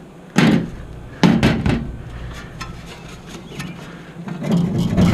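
Hand tools knocking and clinking on the metal parts of an old package heat pump being taken apart: a few sharp knocks about half a second and a second in, then lighter clicks and handling noise.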